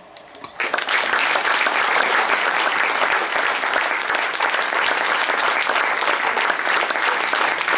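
Audience applause breaking out about half a second in: a few first claps, then steady, full clapping.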